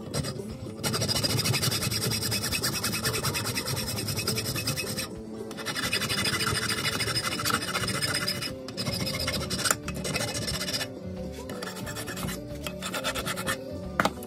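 Steel hand file rasping back and forth across a silver cross clamped in a vise, filing the cast piece to shape. It comes in long runs of strokes with a short break about five seconds in, then shorter, lighter strokes in the last few seconds; background music plays throughout.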